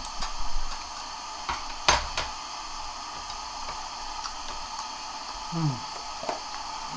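Metal chopsticks clicking against a plate and bowl a few times, the loudest click about two seconds in, over a faint steady room hum. Near the end a short hummed "mm" falls in pitch.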